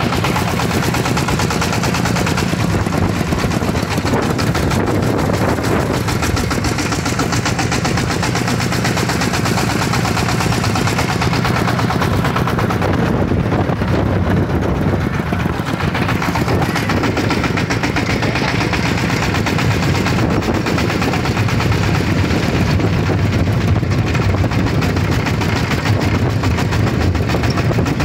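A homemade grandong farm truck's single-cylinder diesel engine running steadily while the truck drives along, a rapid, even chugging beat.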